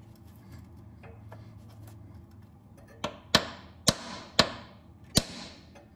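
A hammer striking a socket held against a freeze plug, driving the core plug deeper into the engine block of a VW Mk1. The first half is quiet, then come five sharp metallic taps about two a second in the second half.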